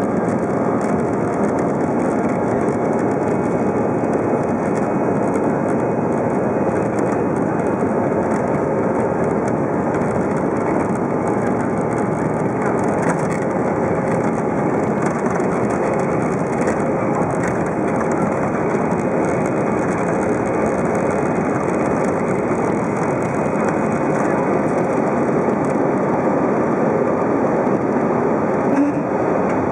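Airbus A320's engines at take-off thrust heard from inside the cabin during the take-off roll: a loud, steady roar. A brief knock sounds near the end.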